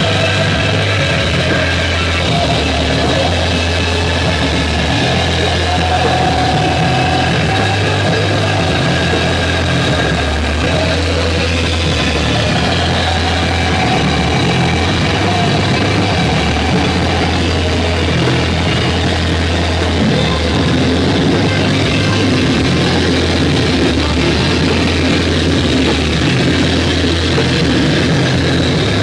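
A live rock band playing loud and without a break: electric guitar through a Marshall amp and cabinet, with a drum kit and a steady low bass line underneath.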